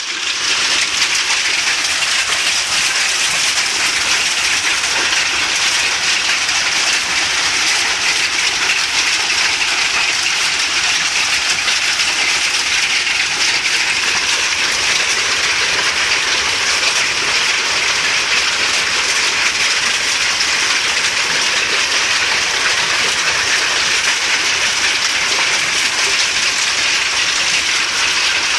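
Hailstones pelting down in a supercell storm: a loud, dense, unbroken clatter of countless small impacts on the surfaces around the house.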